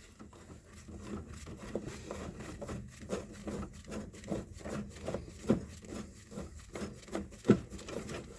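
Hands working on an electrical switch box and its wiring: irregular scraping, rubbing and light taps, with one sharper knock near the end.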